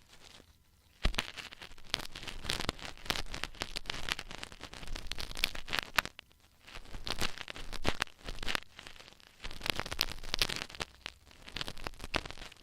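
ASMR ear cleaning: tools scraping and scratching close against a microphone ear, making dense crackling, rustling strokes in clusters, with short pauses just after the start and about six seconds in.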